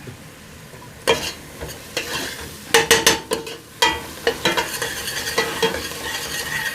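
A utensil scraping and knocking against a pan as onion, garlic and ginger are stirred and sizzle in hot oil. There are sharp knocks around the first and third seconds, and the sizzling grows louder and steadier in the second half.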